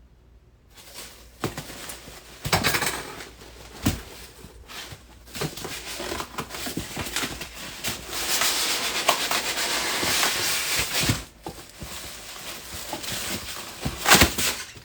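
Packaging rustling and crinkling as a boxed lamp is unwrapped and handled, with scattered knocks and clicks. It is loudest for a few seconds past the middle.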